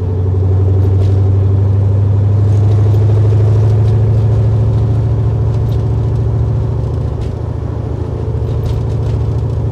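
The 1968 Camaro SS's LSX V8 engine and exhaust, heard from inside the cabin while cruising, a steady low drone. It pulls a little louder in the first few seconds and eases back slightly near the end.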